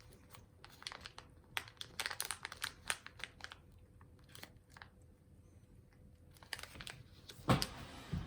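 A cat crunching dry treats: bursts of quick, crisp crunches, with a louder knock near the end.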